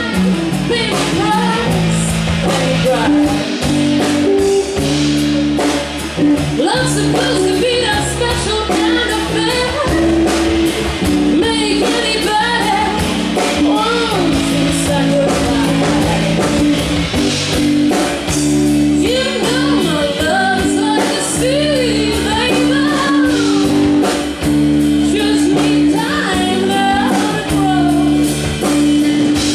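Live blues band playing a slow song: a woman singing over electric guitar, bass guitar and drums.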